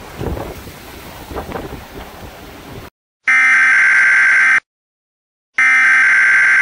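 Wind and rain gusting on the microphone, which cuts off about three seconds in. Then an Emergency Alert System header sounds: two harsh, buzzy data bursts about a second apart, the loudest sound here.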